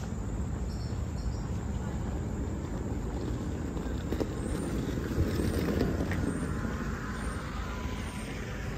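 Outdoor ambience while walking through a park: a steady low rumble with faint insect chirring, swelling a little midway.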